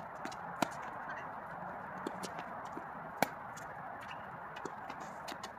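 Tennis balls struck by rackets during a doubles rally: two sharp pops about two and a half seconds apart, with fainter taps between, over steady background noise.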